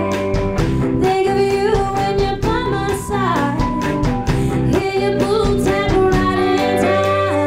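Live band performing: a woman singing lead over electric guitars, keyboard and drums.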